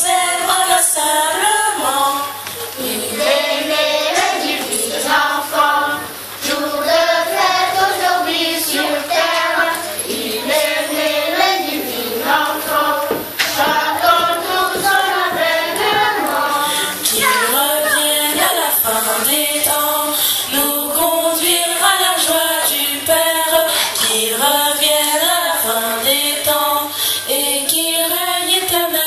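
Children's choir singing a song together, joined by a woman singing into a microphone.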